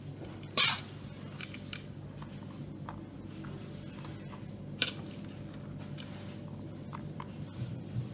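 Kitchen handling noises over a steady low hum: a short noisy burst about half a second in, a sharp clink of dishware near five seconds, and light taps in between.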